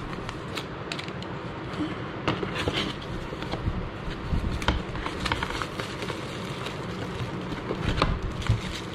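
Cardboard box and its packing being handled by hand: rustling with scattered light taps and clicks.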